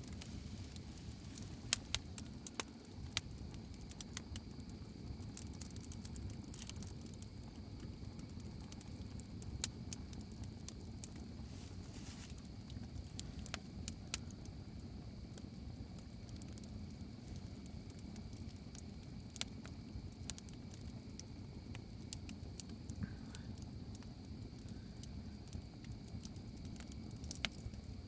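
Campfire crackling: irregular sharp pops and snaps, a few louder than the rest, over a steady low rumble.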